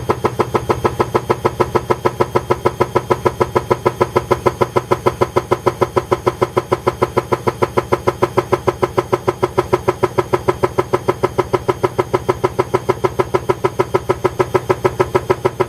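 Bosch Advantixx 7 washing machine drum turning, giving a steady, rhythmic noise pulsing about five times a second over a constant hum. This is the noise of the drum shaft bearing.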